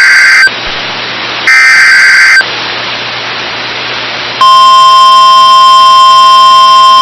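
Emergency Alert System SAME header: two short, loud bursts of screechy digital data with hiss between them. About four seconds in, the steady single-pitch alert tone of a National Weather Service warning (about 1050 Hz) begins and holds.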